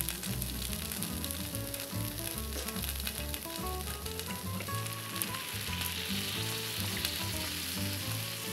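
Mushrooms and a hamburg steak sizzling on a hot griddle plate, a steady crackling sizzle, with quiet background music underneath.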